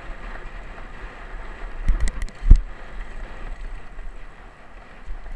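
Mountain bike riding downhill on a dirt and gravel trail, heard through an action camera: steady wind rush on the microphone with tyres rolling on the loose surface. A few sharp knocks come about two seconds in, the loudest a heavy thump at about two and a half seconds.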